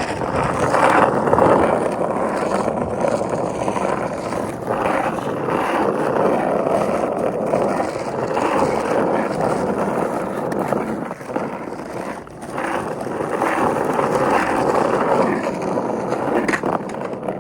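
Skateboard wheels rolling over pavement: a steady rolling rumble with a few short dips and light knocks along the way.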